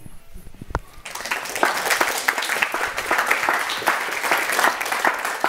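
A small audience clapping, starting about a second in and carrying on steadily as a thick patter of many hands.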